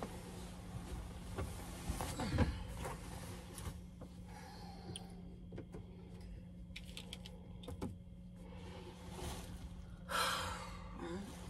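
Bedding and clothing rustling as a person sits up and climbs out of bed, with a few light clicks and knocks, over a steady low hum.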